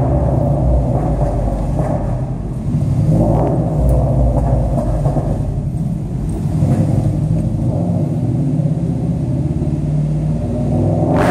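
Subaru exhaust droning as the car drives, its note swelling a few times under throttle and echoing off the concrete of a parking garage, with one sharp exhaust pop right at the end.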